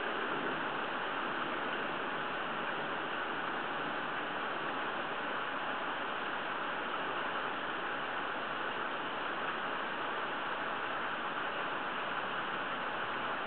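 Steady hiss of hurricane wind and rain, with no breaks or gusts standing out.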